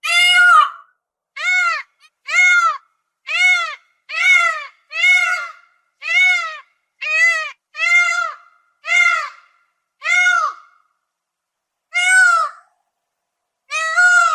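Peacock calling over and over: a series of loud, short, arched, nasal-sounding notes, each rising and falling in pitch, about one a second, with a longer pause near the end.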